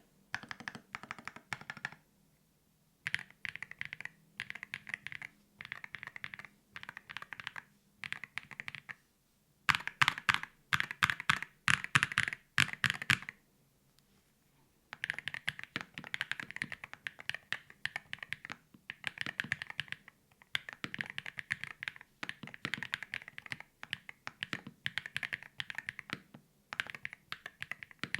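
Typing on a custom 60% keyboard with lubed Everglide Skyline V3 switches on a carbon fibre plate in a top-mount KBDFans GT-60 case: runs of fast keystroke clicks broken by short pauses, with a louder, harder run of strokes about ten to thirteen seconds in.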